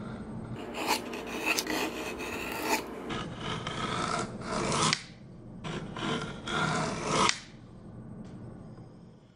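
Japanese chisel paring along a wooden board, its edge rasping through the wood as it curls up a spiral shaving. Three long scraping strokes, then it goes quieter.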